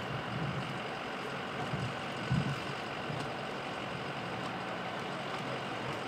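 A vehicle engine idling steadily, with one short low thump a little over two seconds in.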